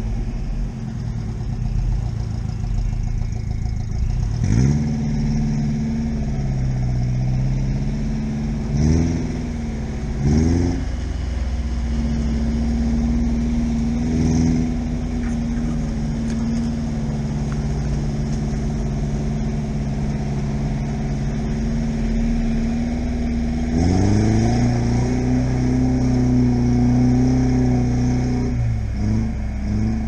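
Chevrolet Niva's engine pulling at low speed through mud ruts, its pitch briefly rising four times in the first half as the throttle is opened, then climbing about 24 seconds in and holding higher before dropping back near the end.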